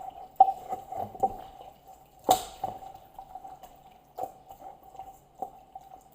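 Irregular wet squelches and taps of a raw whole chicken being handled in its marinade, the seasoning being worked in, with one sharper tap about two seconds in.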